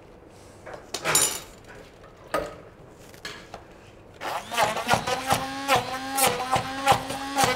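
Hand-held immersion blender switched on about four seconds in, running with a steady motor hum and regular knocks, about three a second, as it purées soft apples in a plastic tub. Before it starts there are only a few light clinks and knocks.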